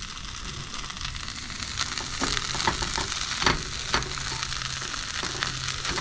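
Crumbled leftover cornbread sizzling in melting butter in a nonstick skillet, reheating, while a fork stirs and breaks it up with repeated clicks and scrapes against the pan.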